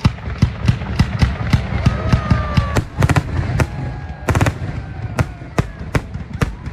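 Fireworks going off in a rapid barrage: sharp bangs about four a second, with crackling between them. It starts abruptly.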